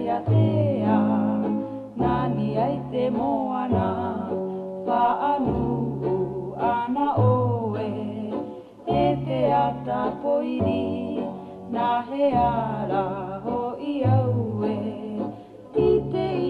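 A song playing as a musical interlude: a voice singing over a plucked-string accompaniment, with low bass notes changing every couple of seconds.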